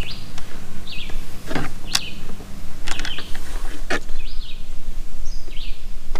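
A small bird chirping again and again, about once a second, over a steady low hum. A few sharp clicks come from small parts being handled at the bench.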